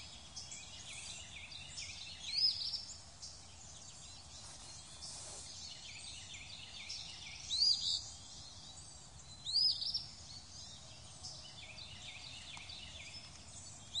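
Quiet outdoor nature ambience: a bird's short chirped calls repeat three times, a few seconds apart, over a faint haze of smaller chirps.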